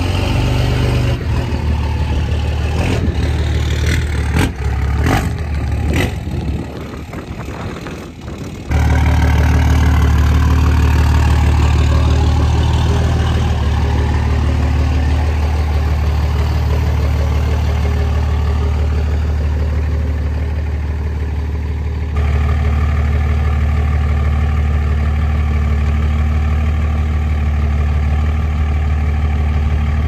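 Diesel pickup truck engine idling steadily, a low even rumble. A few sharp knocks sound in the first six seconds, and the engine sound is louder from about nine seconds in.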